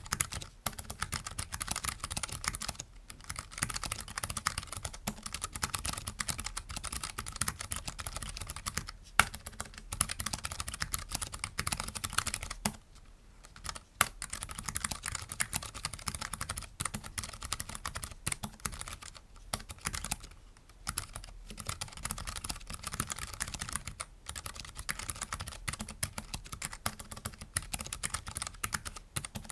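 Continuous fast typing on a Keychron K3 low-profile mechanical keyboard with optical brown switches: dense, irregular key clacks, broken by a few short pauses.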